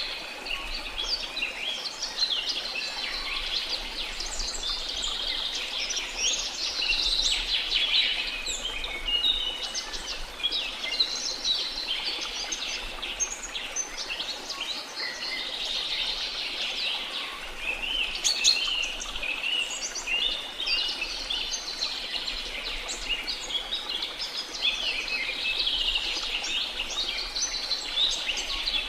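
Dense chorus of many small birds chirping and twittering without a break, over a faint steady hiss.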